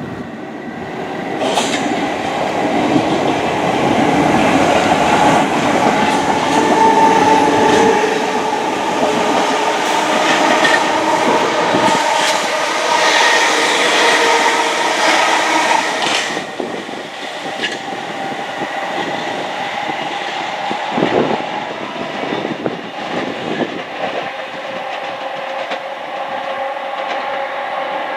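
Passenger train running past on the tracks below, loudest for the first half, then settling to a steadier, quieter running sound with a few sharp knocks from the wheels and rails.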